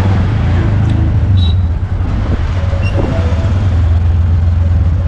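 Small engine of a motor tricycle (keke) running steadily while riding in slow traffic, a constant low rumble with road and traffic noise around it.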